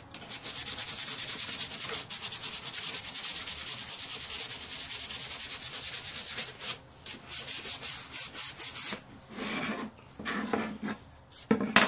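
180-grit sandpaper rubbed by hand over the wooden handle of a Disston handsaw, in quick, even back-and-forth strokes, several a second, smoothing out marks left by a flap sander. The sanding stops about nine seconds in, followed by a few knocks and rustles as the handle is handled.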